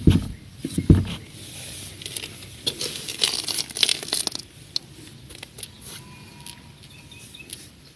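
Two dull knocks from a Volkswagen Golf 3's suspension strut in the first second, the knock of a worn strut. Then a few seconds of rustling and crinkling, with scattered light clicks near the end.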